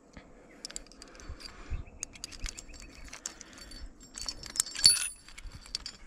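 Climbing hardware clinking and jangling: steel anchor chains, carabiners and the gear rack on the harness knock together as the climber handles the anchor. A louder, ringing metallic clink comes about five seconds in.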